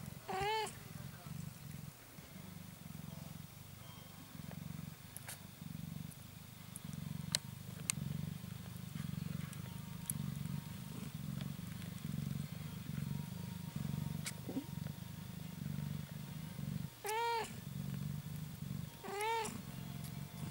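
Cat purring steadily in pulses, with three short, high kitten mews that rise and fall, one about half a second in and two near the end.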